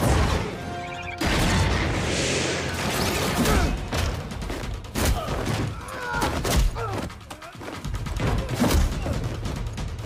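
Action-film fight soundtrack: music under a quick run of hits, thuds, crashes and gunshots.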